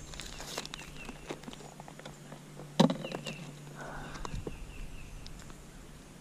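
Plastic tackle box and a bag of soft-plastic crappie baits being handled: light clicks and crinkling, with one sharp knock just under three seconds in, over a faint steady hum.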